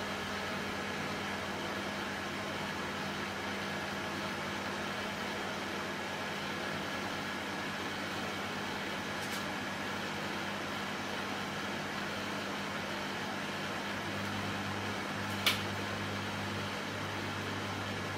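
Soldering fume extractor fan running steadily: a continuous whirring hiss over a low steady hum. Two short clicks sound over it, one about halfway and a louder one near the end.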